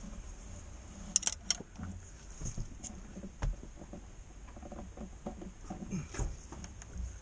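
Steel open-end wrench clinking and knocking against the oil-pan drain plug as it is fitted on, with two sharp metallic clinks about a second in and scattered lighter taps and knocks after.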